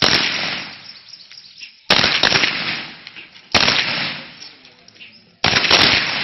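Submachine guns firing in short rapid bursts, four bursts roughly two seconds apart, each sharp crack cluster followed by a fading echo.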